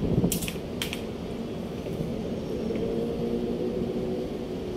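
Two light metal clinks in the first second as parts of a pneumatic needle scaler are handled, over a steady low machinery hum that carries faint steady tones in its second half.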